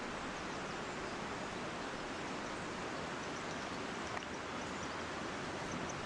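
A fast mountain river rushing steadily over rocks. A single brief click sounds about four seconds in.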